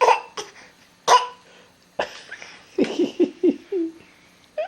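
A toddler's fake coughs: two short, sharp coughs about a second apart, followed a couple of seconds later by a few brief vocal sounds.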